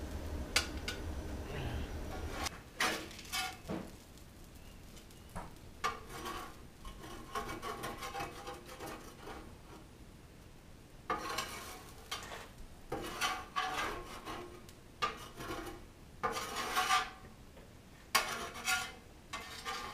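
Metal spatula scraping and scooping across the steel cooktop of a Blackstone griddle, lifting potatoes off onto a plate, in repeated scrapes a second or two long with quieter gaps between.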